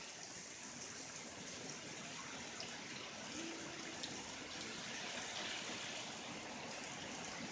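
Rain falling steadily in a passing thunderstorm, a faint even hiss of water with a few small ticks.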